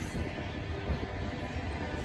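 Train rolling past: a steady low rumble of wheels on rail.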